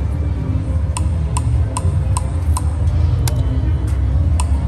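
Slot machine sounds: a steady run of short electronic ticks, about two or three a second, over the low hum of a busy casino floor.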